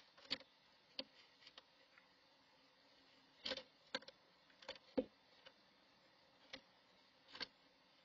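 Woodpecker knocking and clambering at the nest box's wooden entrance hole: about a dozen sharp, irregular taps, heard from inside the box, the loudest around five seconds in.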